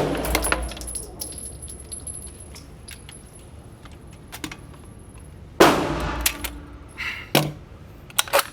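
Gunfire at a shooting range: light metallic clicks and rattles of a firearm being handled, then several separate loud gunshots with an echoing tail, the first about halfway through and a close pair near the end.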